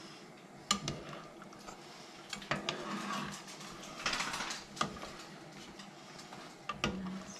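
Long metal spoon stirring stew in a stockpot, clinking against the pot a few times with sharp knocks and scraping along it for a moment in the middle.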